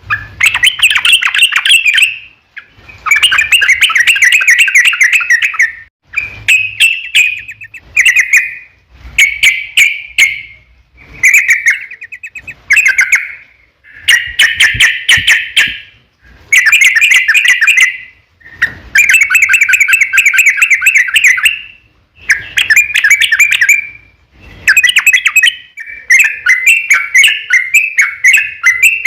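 Yellow-vented bulbul (trucukan) singing long, rapid, bubbly song phrases one after another with short pauses between them. This is a lure song meant to get other bulbuls to sing back.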